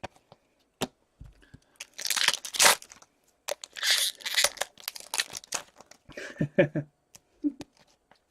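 A hockey card pack wrapper being torn open and crinkled, in two bouts of ripping a couple of seconds long, with a few light clicks between them.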